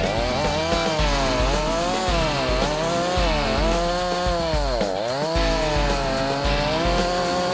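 Chainsaw cutting wood, its engine pitch rising and falling as it slows under load and revs back up, dropping lowest about five seconds in.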